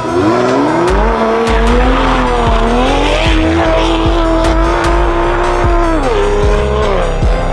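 Sports car engine revving: its pitch climbs, holds steady for a few seconds, then drops twice before rising again. Underneath is a music track with a deep, regular bass beat.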